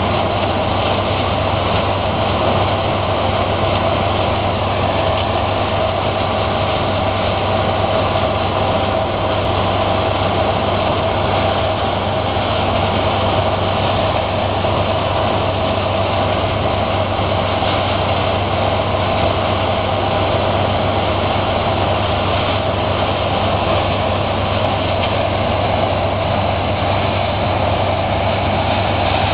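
Zmaj 170 combine harvester running steadily while harvesting, its engine and threshing machinery giving one constant, unchanging drone.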